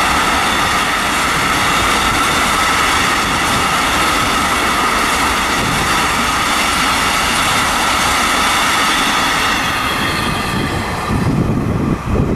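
Approaching freight train of hopper wagons hauled by an SNCF Fret BB 75000 diesel locomotive: a steady rushing rail noise, with a low rumble coming in near the end as the locomotive draws close.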